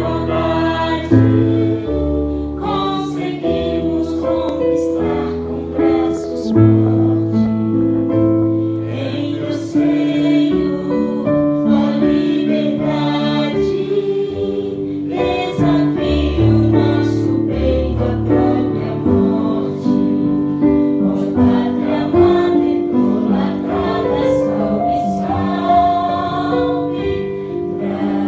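An orchestra playing, with a choir singing along in long held notes over a steady bass line.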